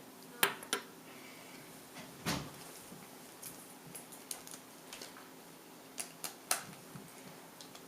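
Small hard objects being handled and set down: a few short, sharp clicks, two about half a second in and three more near the end, with one duller knock a little after two seconds.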